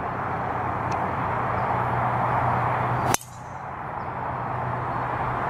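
A Srixon Z545 driver striking a golf ball off the tee about three seconds in: one sharp crack, on a shot that breaks the tee. A steady hiss of outdoor background noise runs under it.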